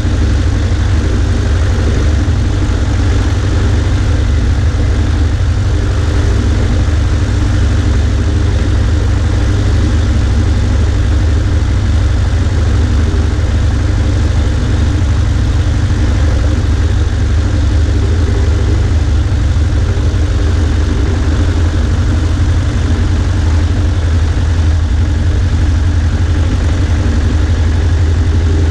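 Cessna 140A's engine and propeller running at a steady, unchanging drone, with a strong low hum and a rushing haze over it, picked up from a camera on the right wing.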